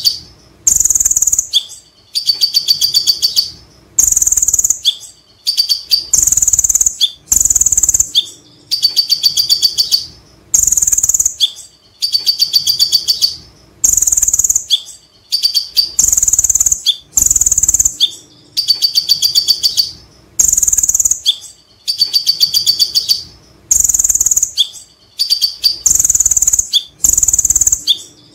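A caged male kolibri ninja (Van Hasselt's sunbird) singing loud, high bursts of rapid repeated notes that stop and start roughly every one to two seconds, the fast chattering 'ngekek' and 'tembakan' song of a bird in full song.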